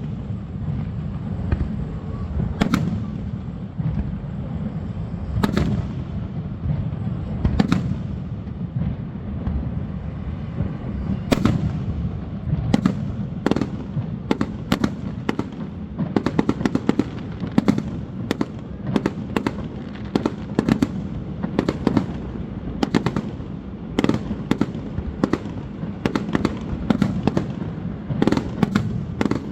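Fireworks bursting: single sharp bangs every couple of seconds at first, then from about twelve seconds in a rapid, dense run of cracks. A steady low rumble runs underneath.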